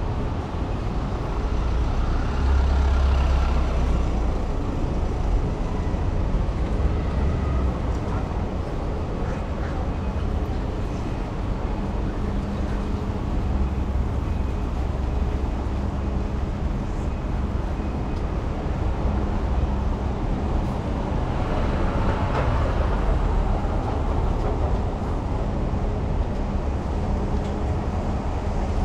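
City street traffic on rain-wet roads: cars, buses and trucks running and passing, with a steady engine hum through the second half and one vehicle passing close about three-quarters of the way through.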